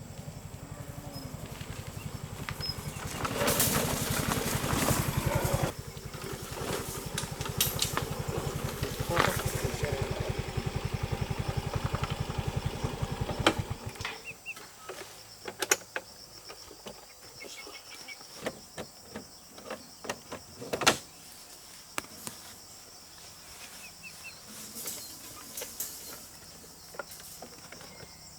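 A small engine running steadily, then cutting off abruptly about halfway through. Scattered sharp knocks and clicks follow.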